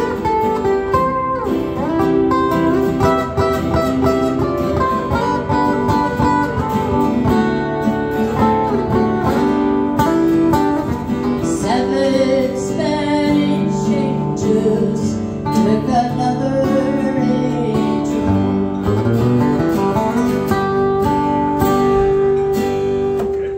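Two acoustic guitars playing a country tune together, strummed chords under picked single-note lines, with some sliding notes partway through.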